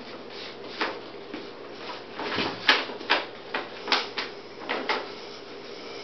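Brown paper bag crinkling and rustling in a quick run of sharp crackles as a kitten bats at and wrestles with it, the loudest near the middle.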